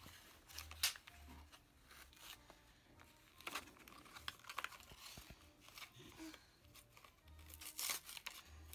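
Paper-and-plastic packaging of a small lip gloss being peeled and torn open by hand, soft tearing and crinkling in short spurts.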